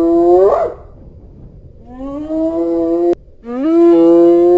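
Spotted hyena giving long whoop calls: three calls, the first already under way. Each starts low, rises and holds a steady pitch; the first and last end in a sharp upward sweep, while the second cuts off suddenly.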